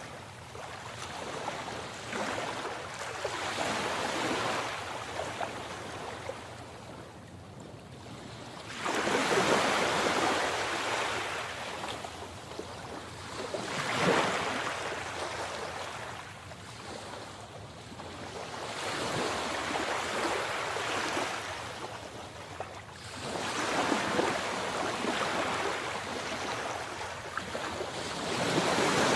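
Sea waves breaking and washing in, the rush of water swelling and falling away every few seconds.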